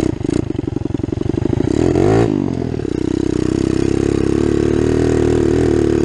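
Kawasaki KLX110 pit bike, big-bored to 143 cc, its single-cylinder four-stroke engine running under throttle with the exhaust pipe snapped nearly in half. It chugs at low revs at first, revs up sharply about two seconds in, then runs steadily, pitch slowly climbing as the bike rides on.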